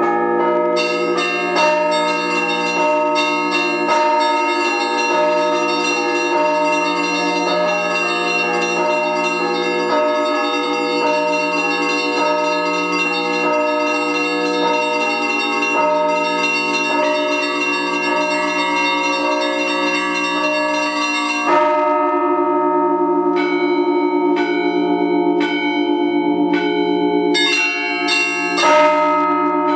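Russian Orthodox church bells rung by hand in a zvon: rapid strikes of the small high bells over the steady ringing of the larger bells. About two-thirds of the way through, the small bells stop and the larger bells ring on with fewer strikes; the small bells come back near the end.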